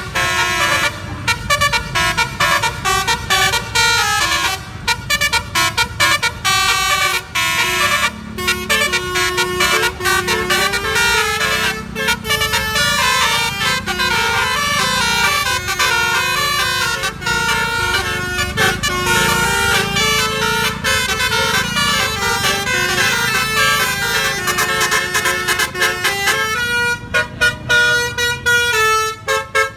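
Basuri-style musical air horn, driven by a DAV air horn tone module, playing a running melody of stepping horn notes over a low rumble. The notes break into short, choppy blasts near the end.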